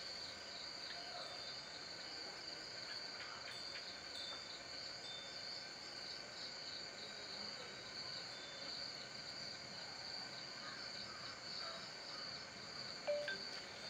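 Crickets chirping in a steady high-pitched chorus, with a brief knock near the end.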